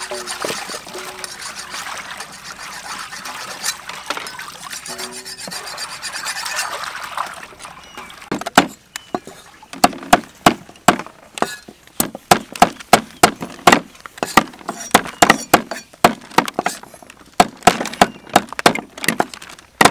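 Chicken feet being washed by hand in a metal basin of water, a steady splashing and sloshing. About eight seconds in, this gives way to cleavers chopping chicken feet on wooden chopping boards: sharp, irregular chops, about two or three a second.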